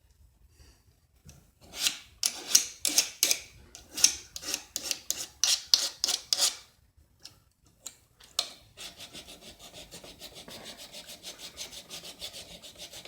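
A blade being drawn across a diamond sharpener: a run of separate rasping strokes, then, after a short pause, a quicker, even run of about five strokes a second.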